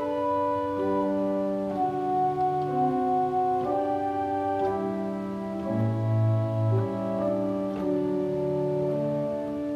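Pipe organ believed to date from 1858, its restoration partly complete, playing slow held chords that change about once a second, with a deep bass note loudest around six seconds in.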